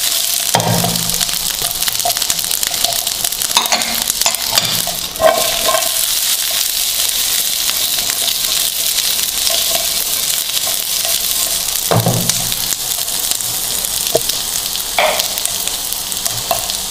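Cubed onion, green capsicum and tomato sizzling steadily in a teaspoon of oil in a non-stick frying pan while being stir-fried. A few louder scrapes and knocks come as the pieces are tossed and stirred.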